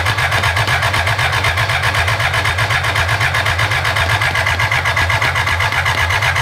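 A 1000cc BMW motorcycle engine being cranked over by its electric starter, a steady rhythmic churn of about six beats a second that does not catch and run. The fuel lines are still being purged of air and the injectors are suspected of being gummed up.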